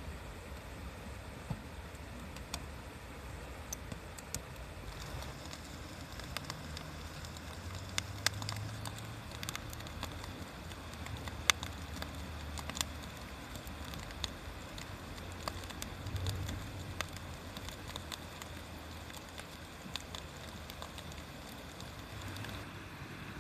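Wood bonfire burning, with irregular sharp crackles and pops, the loudest a little before halfway, over a steady low rumble.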